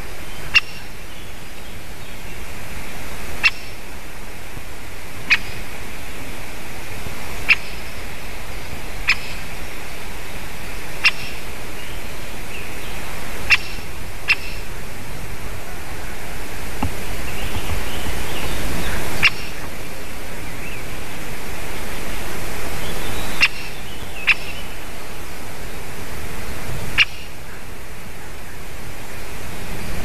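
Great spotted woodpecker giving single sharp 'kik' calls at irregular intervals of one to a few seconds, over a steady background hiss.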